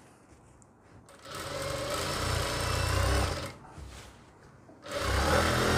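Jack industrial single-needle lockstitch sewing machine stitching a seam through layered dress fabric in two runs: one of about two seconds starting about a second in, and a shorter one near the end.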